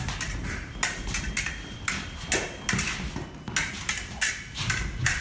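Fencing blades striking and scraping against each other in a lesson drill: about a dozen sharp metallic clicks and rings at an irregular pace. There are low thuds of footwork on the piste.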